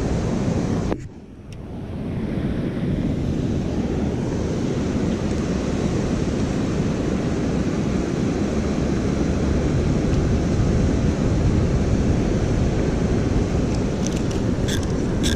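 Steady rush of river water below a dam, with wind on the microphone. It drops away suddenly about a second in and swells back over the following second.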